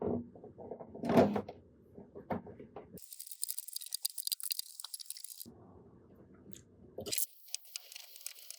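Handling noises while fitting a 3D printer's spool holder: a few sharp knocks and clicks in the first three seconds, then two stretches of crinkly, rustling noise.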